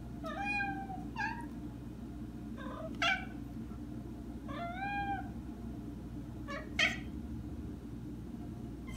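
Maine Coon cat meowing repeatedly, about six or seven meows. The longer ones rise and fall in pitch, near the start and about five seconds in. Shorter, sharper ones come around three and seven seconds.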